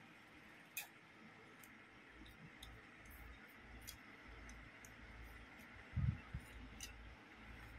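Faint, scattered clicks and ticks of a small plastic toy-brick helicopter model being handled and turned in the fingers, with a low thump about six seconds in.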